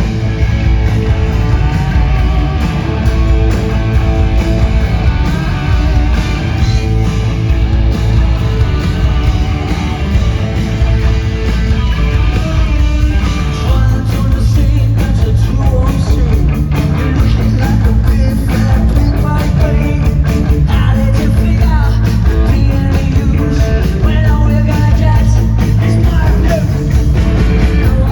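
Punk rock band playing live and loud: electric guitars over bass and drums, the playing getting fuller and busier about halfway through.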